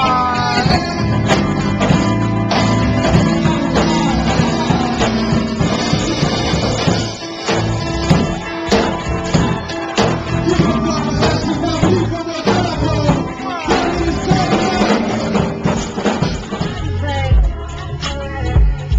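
Live band playing, with electric bass, drum kit and keyboard, and a vocalist singing over it. Near the end the band cuts off and heavier, deeper bass takes over.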